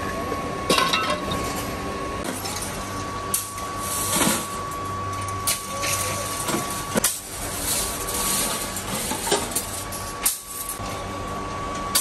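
Scrap steel pieces clanking and clinking as they are shovelled and dropped into a steel wheelbarrow, in irregular sharp clanks every second or two, over a steady mechanical hum.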